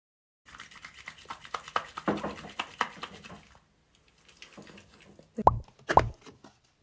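Hands rubbing face cleanser vigorously over the face, heard as a rapid run of small clicks. Then two quick cartoon-style plop sound effects with a falling pitch, about half a second apart, near the end.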